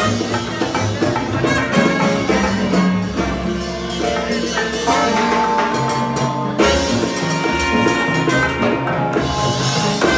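Live Latin jazz band playing, with saxophone and trombone heard in the ensemble.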